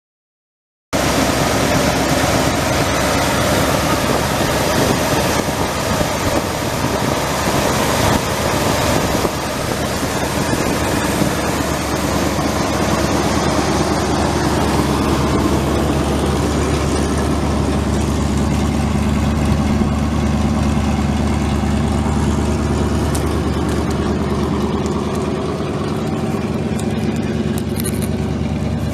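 1978 Ford F250 pickup's eight-cylinder gas engine running steadily, cutting in abruptly about a second in.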